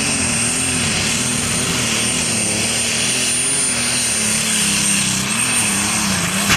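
Heavy super stock pulling tractor's turbocharged diesel engine running under full load as it drags the weight-transfer sled down the track, its pitch wavering slightly, then cutting off abruptly at the very end.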